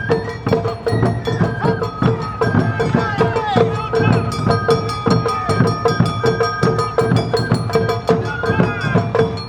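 Awa Odori hayashi band playing: taiko drums and a kane hand gong strike a steady beat under a held shinobue bamboo-flute melody.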